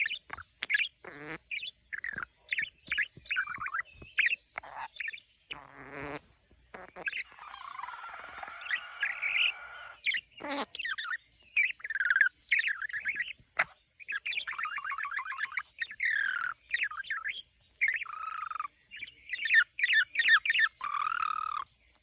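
Pet budgerigar warbling and chattering: a fast, continuous run of short chirps and quick up-and-down glides, with a scratchier chattering stretch partway through.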